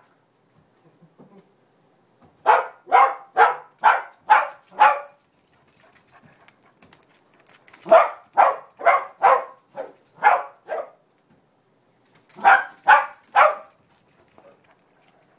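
Chihuahua barking in three quick runs, about two barks a second: six barks, then seven, then three, with pauses between.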